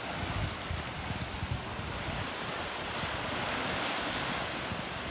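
Ocean waves breaking and washing up a beach, with wind buffeting the microphone. A wash swells to its peak about three to four seconds in.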